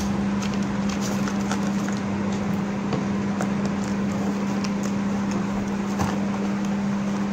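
Steady low electrical hum over hiss, with scattered light clicks and taps as a cardboard pencil box is handled, closed and set down.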